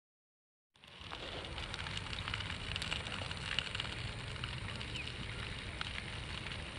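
Silence for under a second, then a grass fire in dry cogon grass crackling steadily: many small sharp pops over a low rumble.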